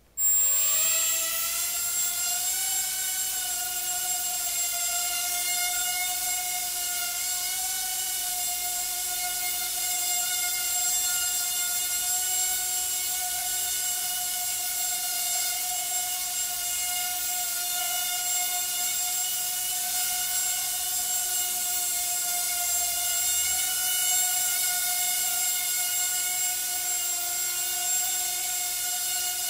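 Hubsan H107D micro quadcopter's four tiny coreless motors and propellers starting up suddenly and rising quickly in pitch, then a steady high-pitched whine as it lifts off and hovers.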